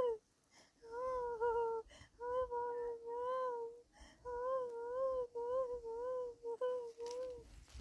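A high-pitched voice humming without words, in a run of short held notes with slight wavers and brief breaks between them.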